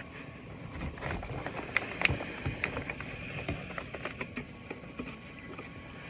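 Pressurised air blowing from a ResMed AirSense 10 CPAP set to 18 cmH2O through a nasal mask as it is being fitted. Rustling and a run of sharp clicks and knocks come from handling the mask and headgear.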